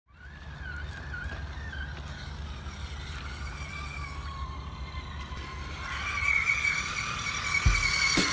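ECX Barrage Gen 2 RC crawler's electric motor and geartrain whining as it crawls through a shallow creek toward the listener. The whine steps higher and grows louder about six seconds in, with a low thump just before the end.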